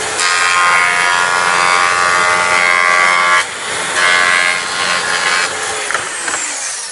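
Makita plunge track saw with a 45-degree V-grooving blade running and cutting a groove into thin aluminum sheet: a loud whine over a grinding rasp. The cut dips briefly about three and a half seconds in, then resumes, and it is lighter from a little past five seconds.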